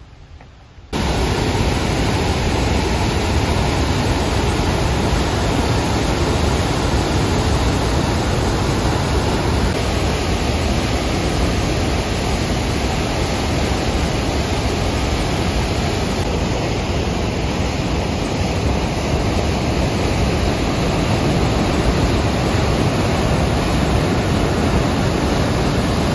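Steady, loud rushing of Athabasca Falls, a big waterfall pouring through a rock gorge and churning into white water, starting suddenly about a second in.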